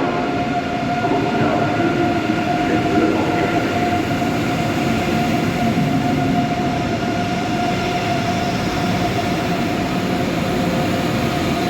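Electric train running at the station platform: a steady rumble with a steady whining tone on top.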